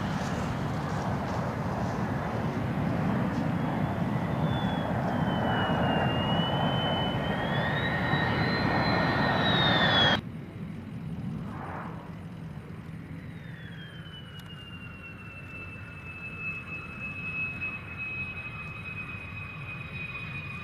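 F-16 fighter jet engine running hard on the takeoff roll, a loud jet noise with a turbine whine that wanders in pitch. About halfway through it cuts off abruptly to a quieter F-16 jet engine near the runway, its whine falling and then holding one steady pitch.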